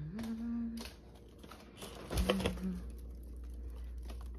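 A short hummed note from a voice, then a freezer door pulled open with a sharp knock about two seconds in, followed by the freezer's steady low hum.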